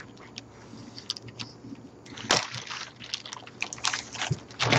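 Thin plastic bag of small plastic miniatures crinkling and crackling as hands pull it open, with sharp crackles about two and a half seconds in and again near the end.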